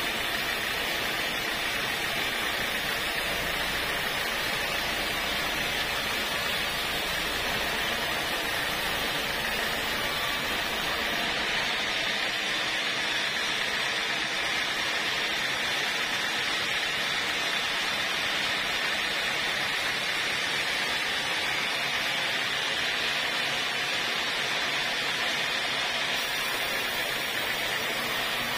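Band sawmill blade running and ripping lengthwise through an acacia log: a steady, unbroken sawing noise.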